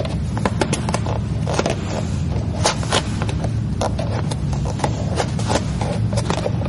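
Plastic squeegee and fingers working vinyl wrap film onto a truck's rocker panel and under the door edge: irregular scraping and sharp clicks over a steady low hum.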